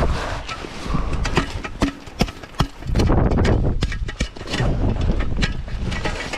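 A string of sharp clicks and knocks from tent gear being handled while the tent is pitched, over wind rumbling on the microphone.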